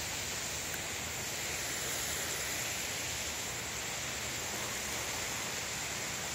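Steady hiss of lawn sprinklers spraying, with a continuous high-pitched insect trill over it.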